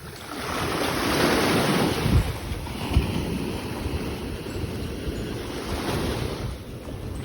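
Waves washing in on the shore, swelling up within the first second, with wind buffeting the microphone in low rumbles.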